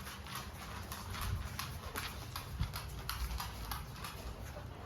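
Dog claws clicking and scrabbling on a hard floor as the dogs move about, an irregular patter of sharp clicks, several a second.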